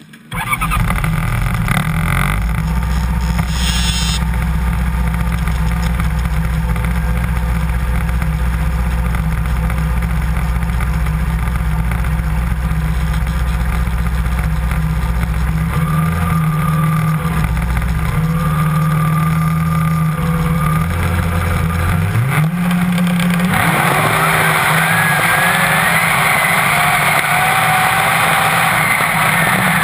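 Two-stroke race snowmobile engine: a steady low idle that comes in suddenly just after the start, with a few throttle blips in the middle. About 22 seconds in it revs up with a rising whine and launches to full throttle, running at high revs with the rush of track and snow noise.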